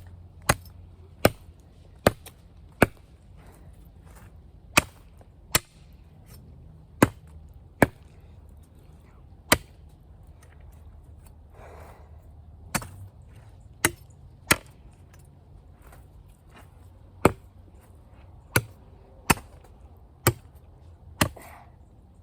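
Hand chopping into a small tree trunk with a blade, hacking through a thick section of green wood: about eighteen sharp single chops, in uneven runs roughly a second apart with a few longer pauses.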